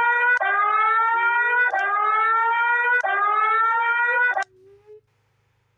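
Electronic emergency alert tone: a rising whoop that restarts about every 1.3 seconds, four times, then cuts off about 4.5 seconds in.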